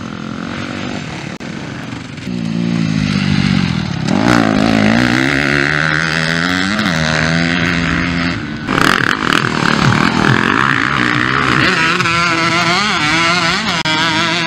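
Motocross dirt bike engines at full throttle on a dirt track, rising and falling in pitch as riders accelerate, shift and roll off. There is a sudden change to a new bike about a third of the way in, and quick throttle blips near the end.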